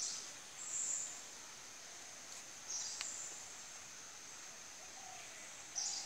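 Rainforest ambience: a steady high insect drone, broken every two to three seconds by short, brighter high calls, with a few faint lower calls near the end and a single light tick about halfway.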